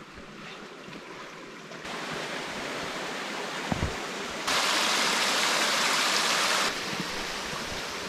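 Rushing water of a small mountain creek, a steady hiss that jumps abruptly louder about halfway through and drops back near the end. A couple of short knocks come just before the loud stretch.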